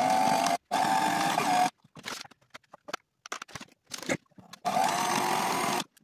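Sailrite sewing machine stitching a zigzag seam through overlapped strips of sailcloth in three short runs of about a second each, a steady motor hum with a clear tone, on test pieces run through to get the stitch and thread tension set up. Light clicks between the runs.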